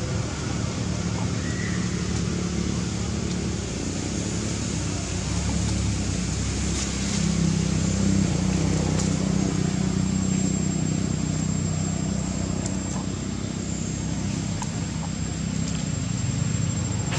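A steady low engine hum over outdoor background noise, swelling a little around the middle.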